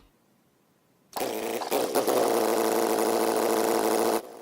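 A small motor starts abruptly about a second in, runs at a steady pitch for about three seconds, then cuts off suddenly.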